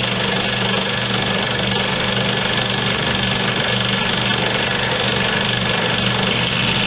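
Metal vise part held against a spinning wire wheel, a steady harsh scraping over the motor's hum as the wheel brushes at old factory paint without stripping it.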